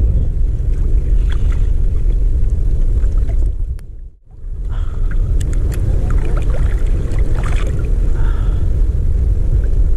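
Wind rumbling on the microphone over open sea: a loud, steady low rumble with a few faint clicks. The rumble drops away briefly about four seconds in, then returns.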